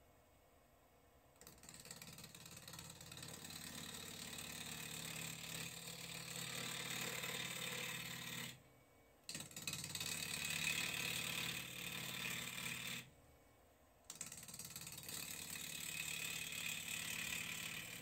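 Turning tool cutting into a spinning hazel blank on a Record Power wood lathe, shavings flying, a rough scraping cut. It comes in three passes, with short breaks about eight and thirteen seconds in.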